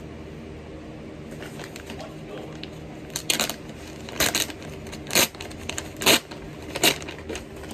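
Plastic mailer bag rustling and crinkling as it is pulled open and handled, in five loud bursts about a second apart starting about three seconds in, over a steady low hum.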